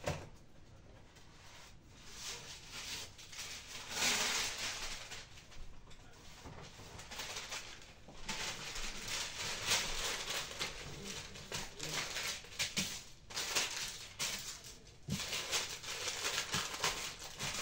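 A large sheet of brown paper rustling and crinkling as it is handled and unfolded, in uneven waves.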